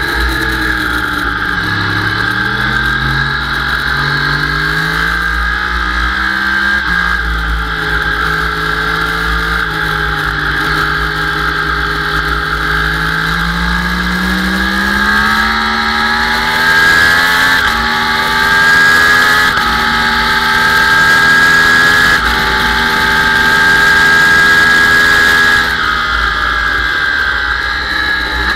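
Sport motorcycle engine heard from an onboard camera at speed on a race track: the revs fall as it slows, then climb again and again under hard acceleration, with a sudden small drop at each upshift, until the throttle closes near the end. Wind buffets the microphone throughout.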